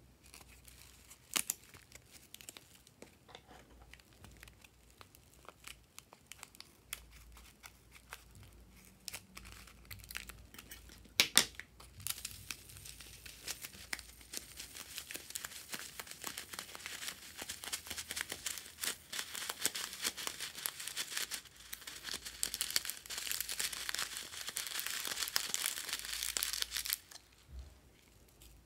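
Plastic piping bag crinkling as it is handled, with one sharp snap, then a stream of tiny foam beads pouring out of it onto a glass dish: a dense patter of tiny ticks that builds and stops suddenly near the end.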